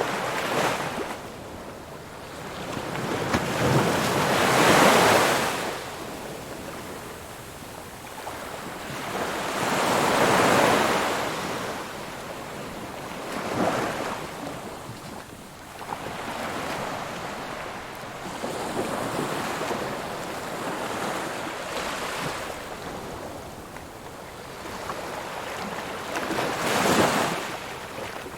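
Ocean surf: waves breaking and washing up in a slow series of swells, the largest about five and ten seconds in and another near the end, with a steady hiss of water between them.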